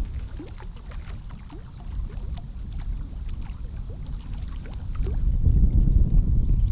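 Wind buffeting the microphone as a low rumble, growing louder about five seconds in, with a few faint short chirps above it.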